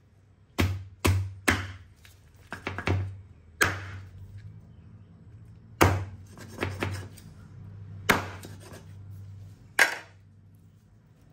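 A series of about a dozen sharp, irregular knocks over about ten seconds, some in quick pairs and some with a brief ring, over a low steady hum.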